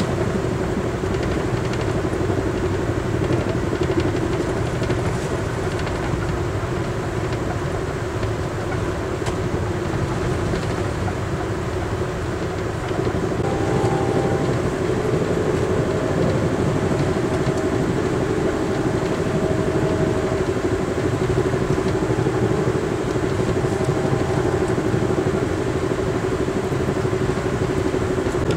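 Interior ride noise of a moving Amtrak passenger coach: a steady rumble with a droning hum. About halfway through it gets a little louder and faint higher tones come and go.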